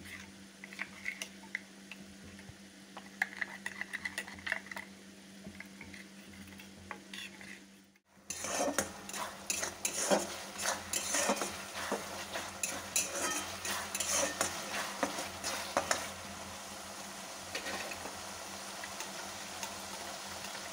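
A spoon stirring a spice paste in a steel bowl, clinking and scraping lightly. About eight seconds in, this gives way to tomato paste sizzling in hot oil in a kadai, a spatula scraping and stirring it; near the end the scraping stops and a steady sizzle remains.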